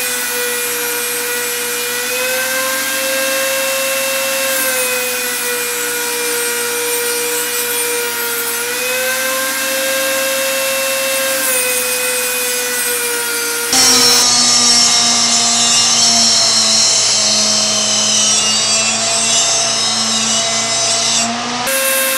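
High-speed handheld rotary tool running as a small cutoff wheel cuts into the steel housing of an inline transmission filter, its steady whine dipping in pitch and recovering as the wheel bites into the metal. About 14 s in the sound changes abruptly to a louder, lower-pitched run of the tool on the metal.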